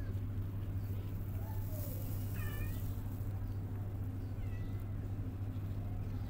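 Newborn kittens mewing: a few short, high-pitched calls over a steady low hum.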